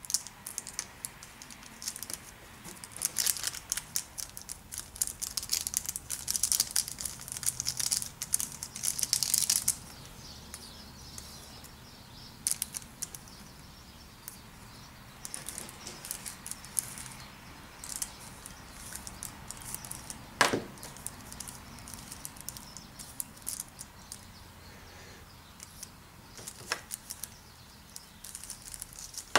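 Hobby knife blade scraping under dried Woodland Scenics Water Effects icicles and peeling them off a sheet: a dense crackling and tearing for the first ten seconds or so, then scattered scrapes and crackles with a couple of sharp clicks.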